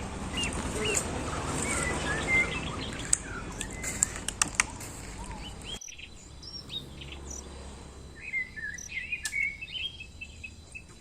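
Small birds chirping repeatedly, short high calls scattered throughout, over a steady background hiss with a few sharp clicks that cuts off suddenly about six seconds in, leaving the chirps more clearly heard.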